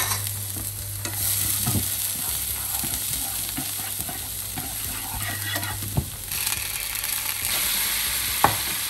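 Minced shallots and garlic sizzling in oil in a nonstick frying pan while being stirred; the sizzle grows louder about two-thirds of the way through. The stirring utensil knocks sharply against the pan three times.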